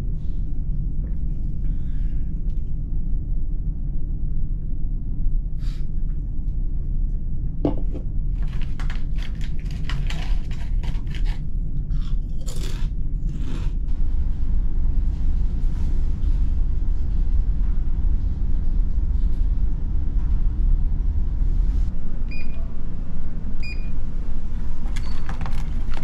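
Steady low engine rumble, with a run of knocks and rattles from about eight to fourteen seconds in and two short high beeps near the end.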